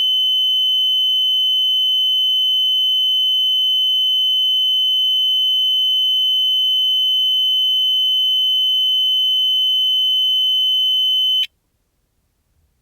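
Multiparameter cardiac monitor sounding one continuous high-pitched tone, the flatline alarm that signals no detected heartbeat. It cuts off suddenly near the end.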